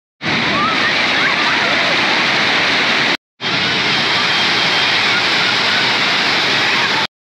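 A shallow river waterfall rushing steadily as water cascades over stepped rock ledges. The sound cuts out briefly near the start and again about three seconds in.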